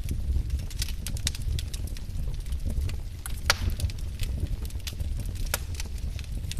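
Firewood fire crackling: irregular sharp pops and snaps over a low steady rumble of flames, with one louder pop about three and a half seconds in.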